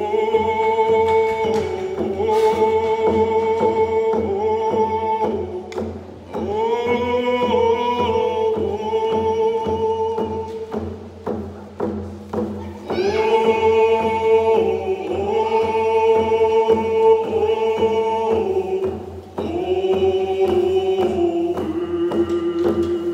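A group of voices singing a canoe-family song in unison, in long phrases with short breaks between them, over a steady beat struck on frame hand drums.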